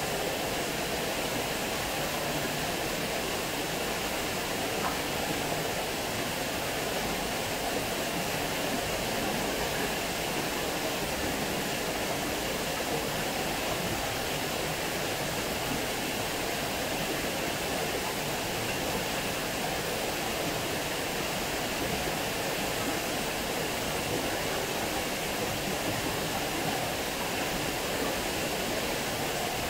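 Water pouring over a small weir and splashing into the pool of a stone-walled channel: a steady rushing splash that does not change.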